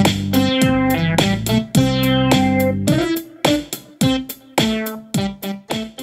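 Instrumental background music: a steady run of bright, quickly struck notes over a low sustained bass. About halfway through the bass drops out, and the notes thin out and fade.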